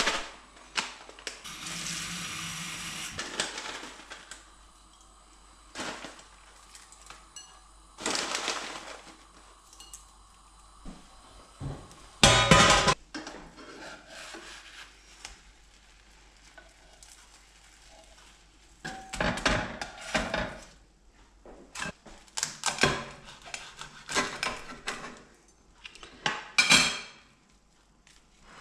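Cooking clatter: a spatula scraping and knocking against a nonstick frying pan, with clinks of a plate and cutlery, in scattered short bursts, the loudest a little after twelve seconds in.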